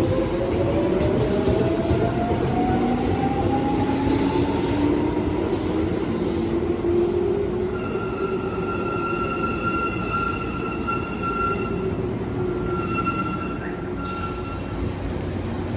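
Tobu 9000-series electric train with Toyo armature-chopper control accelerating: a motor whine rises steadily in pitch over the first few seconds over running noise. A steady high whine sets in about halfway through and stops near the end.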